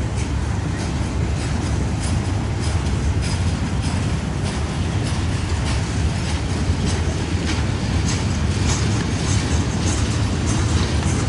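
Freight cars of a CSX manifest train rolling past: a steady low rumble of wheels on rail with many scattered clicks.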